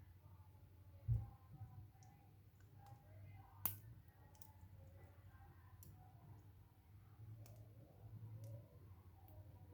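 Faint, scattered small metallic clicks of a tension tool being worked in the keyway of a tiny 20 mm Master padlock, catching on the pins. There is one sharper click a little under four seconds in and a dull knock about a second in.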